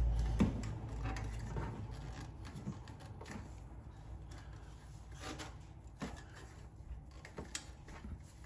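Faint scattered clicks and scrapes of metal exhaust tips being twisted and slid onto the tailpipes by hand, with a low rumble fading away over the first couple of seconds.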